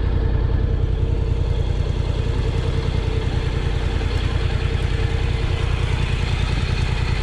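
Honda NC750X's parallel-twin engine idling steadily on the stationary motorcycle.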